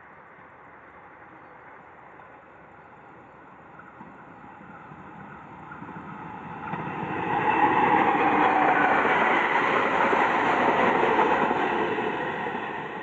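PT INKA service train approaching and passing, growing from faint to loud over the first eight seconds or so, staying loud for about four seconds, then starting to fade near the end.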